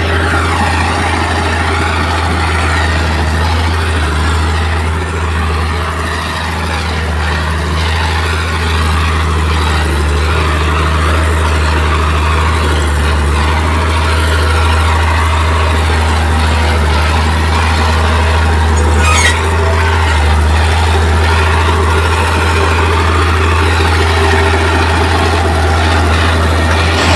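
Heavy diesel earthmoving machinery running steadily under load, with a low, even engine sound throughout.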